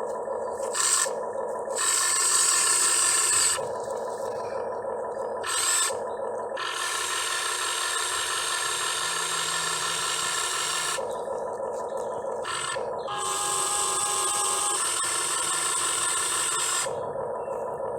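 Electric motors and geared drives of a remote-control excavator whirring, starting, stopping and changing pitch in turn as different functions are worked.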